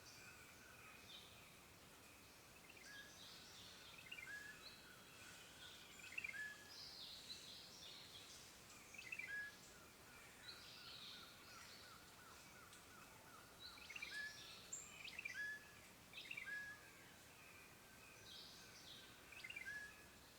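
Faint woodland birdsong: several birds giving short chirps and brief phrases every second or two, over a soft hiss of outdoor ambience.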